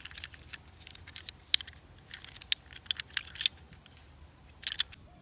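Irregular small clicks and taps as a toy sanitation truck with a metal cab and plastic bin is handled and turned over in the hand, with a short run of clicks near the end.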